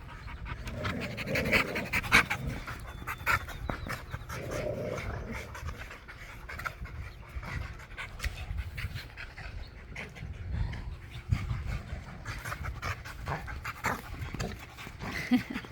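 A dog panting, with scattered short clicks and rustles.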